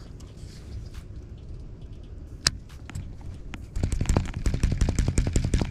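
A sharp single click about two and a half seconds in. About four seconds in a small engine comes in, running with a rapid, even putter of about ten beats a second.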